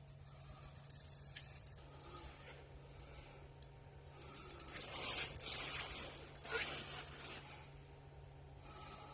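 A fishing reel's drag clicking rapidly for about the first two seconds as a hooked pike pulls line from a light bluegill rod, the drag slipping to spare the 1 lb line. Scraping and rustling follow in the middle, over a steady low hum.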